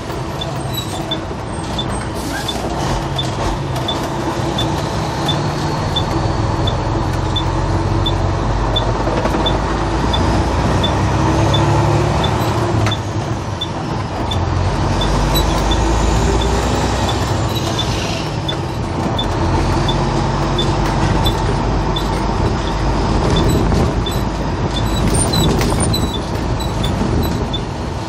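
Engine and road noise of a heavy vehicle heard from inside its cab while driving, the engine speeding up and easing off twice with a faint whine that rises and falls alongside it. A faint, regular high tick about twice a second runs underneath.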